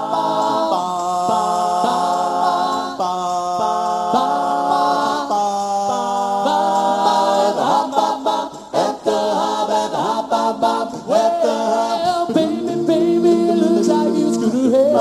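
Four-man male a cappella doo-wop group singing in close harmony, with held chords that change every second or so. A few short sharp sounds come around eight to nine seconds in.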